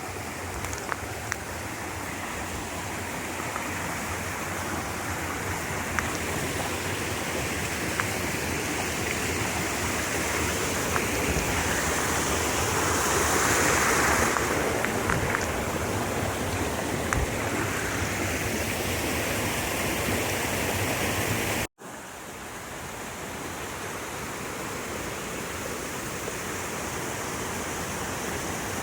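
Mountain stream water rushing steadily, swelling a little about halfway through, with a few faint taps over it. The sound drops out for an instant about three quarters of the way through, at an edit.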